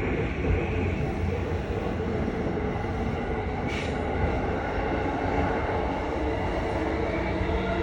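Electric train running with a steady low rumble and a droning tone that seems like a cow mooing. The tone grows stronger near the end, and there is a short hiss about four seconds in.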